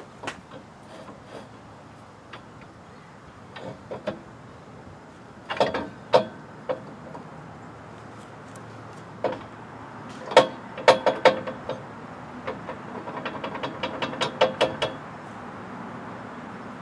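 Steel clanking and clinking from a high-lift jack being handled on its mount: scattered knocks, then two clusters of louder clanks that ring briefly, then a quick run of rattling clicks lasting about two seconds near the end.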